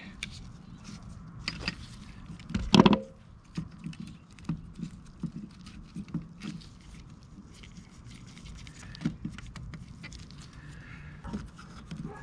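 Small scattered clicks and taps of needle-nose pliers and small metal parts being handled at a trolling motor's brush plate, with one louder knock about three seconds in.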